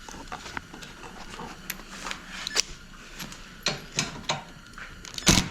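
Irregular metallic clicks and clinks of hand tools and sockets working on bolts during a teardown, ending in a loud burst of noise.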